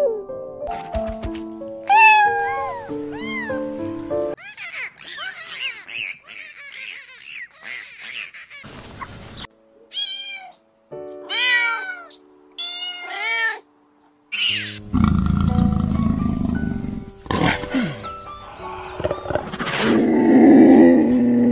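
Cats meowing over background music: a series of short calls that rise and fall in pitch. Near the end a louder, rougher, noisy stretch takes over.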